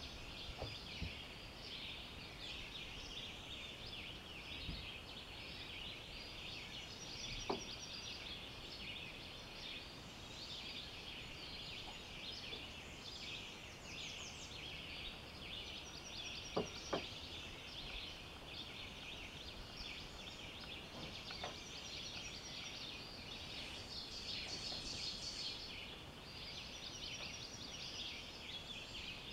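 Woodland dawn chorus: many birds chirping together in a steady dense chatter, with louder repeated high song phrases now and then. A few faint knocks stand out briefly.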